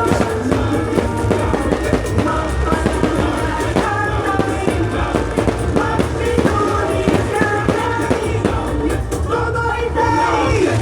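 A pop song with sung vocals over a band and a steady drum beat.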